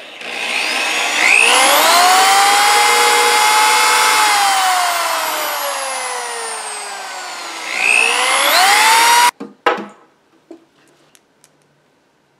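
Electric drill with a 3/8-inch bit boring into the particleboard top of a bookshelf. The motor whine rises to speed, slowly falls in pitch, then rises again before cutting off sharply about nine seconds in. A few clicks follow.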